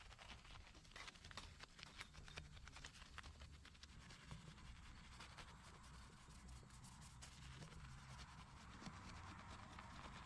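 Faint scratching and rubbing of a soft detailing brush's bristles scrubbing car-wash foam around a car's badges and grille: a quick run of small scratches and ticks that thins out after about seven seconds.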